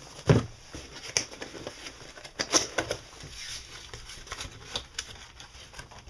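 Cardboard shipping box being handled: a run of knocks, taps and scrapes with rustling between them, the loudest a thump just after the start.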